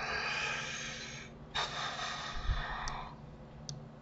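A person breathing heavily into a close microphone: two long breaths, each about a second and a half, the second starting after a short gap. Two faint clicks follow near the end.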